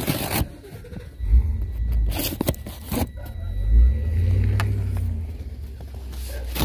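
Cardboard shipping box being handled, with short scrapes and knocks. From about a second and a half in, a loud low rumble sets in underneath and keeps going.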